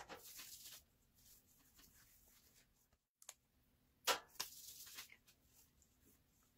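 Faint rustling and rubbing from hands handling skincare products, in two short bursts: one at the start and one about four seconds in. A faint low hum lies under it.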